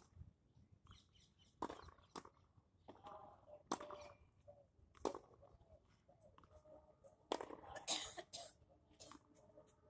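Faint tennis racket strikes and ball bounces on a hard court: sharp single pops every second or two, with several close together about seven to eight seconds in.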